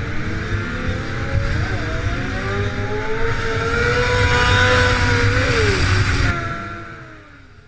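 BMW S1000RR inline-four sport bike engine accelerating under load, its pitch climbing and dipping sharply twice at gear changes. It is loudest about five seconds in, then cuts off suddenly about six seconds in and fades away.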